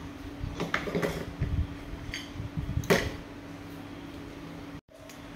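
Toy cookware and dishes clinking and knocking as a child handles them: scattered light knocks, with a sharper clink about three seconds in. A steady low hum runs underneath.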